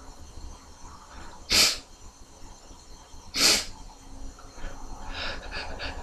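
A person sneezing twice, about two seconds apart, each a short loud blast, then a few quieter short breaths near the end.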